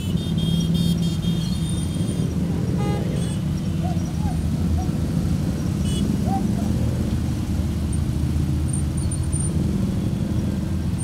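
Several cruiser motorcycle engines running in a slow group ride through road traffic, a steady low rumble. Some short high-pitched beeps and clicks come in the first two seconds.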